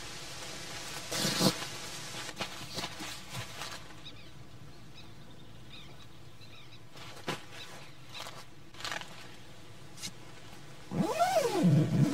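Soft rustles and light knocks of things handled inside a tent, then near the end the tent's mesh door zipper drawn along in a loud run whose pitch rises and then falls.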